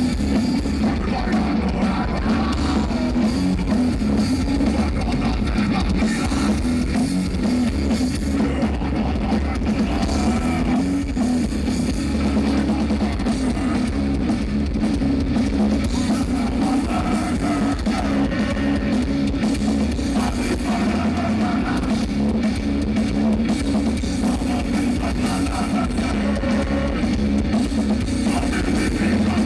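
Metal band playing live through a stage PA: electric guitars, bass guitar and drum kit at a loud, steady level.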